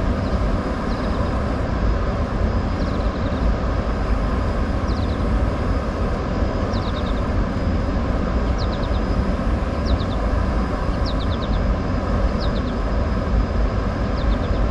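Steady low rumble of water and machinery from the dam, with faint hum lines in it. Above it a small bird repeats a short call of three or four quick falling chirps about every second or so.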